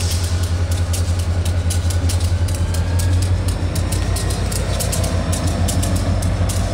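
EMD GP40-2 diesel-electric locomotive, its 16-cylinder two-stroke EMD 645 engine running with a steady, rapid low pulse as the locomotive rolls slowly along the track. Scattered sharp clicks sound throughout.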